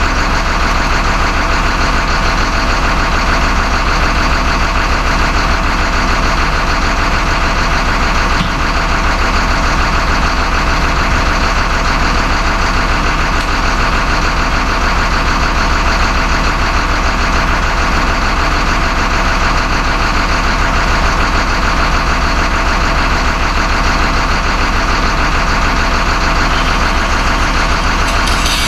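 An engine running steadily at an even speed, a constant low hum with a busy mechanical drone above it.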